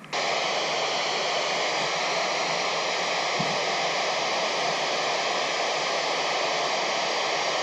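FM receiver static from a Kenwood handheld radio tuned to the 2-metre amateur band: a steady, loud hiss that starts suddenly as the voice transmission drops out. The open squelch is passing noise with no signal being received.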